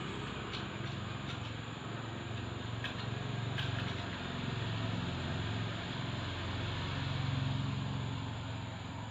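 An engine running steadily with a low hum, with a few faint clicks.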